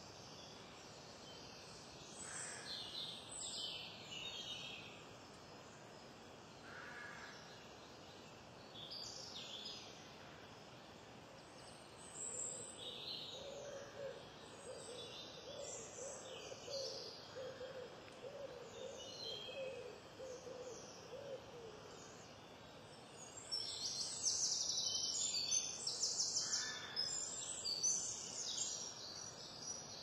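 Woodland birdsong: songbirds singing short high phrases throughout, loudest and densest from about 24 to 28 seconds in. Underneath, a pigeon's low, evenly repeated cooing runs from about 13 to 22 seconds in.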